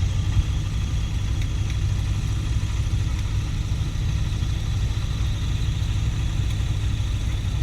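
Excavator's diesel engine running at a steady speed, a constant low rumble with no revving.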